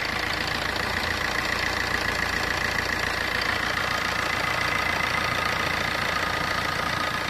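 Fiat Punto's 1.3 Multijet diesel engine idling steadily and quietly on a new timing chain and idler bearing, with no chain rattle.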